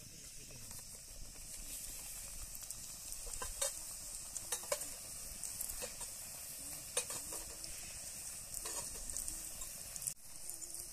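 Food frying in hot oil in a pan: a steady sizzle, with about four sharp clicks of a utensil against the pan.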